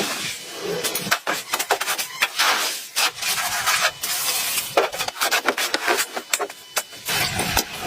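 Irregular scraping and rasping with many sharp knocks, like hand work on wood or metal. A low rumble joins near the end.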